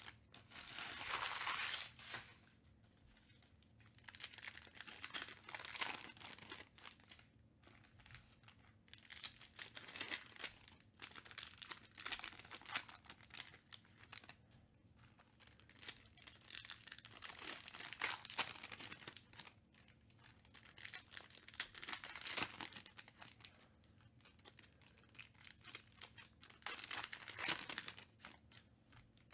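Foil Panini Select trading-card packs torn open and crinkled by hand, in irregular bursts of tearing and crackling with a long tear about a second in.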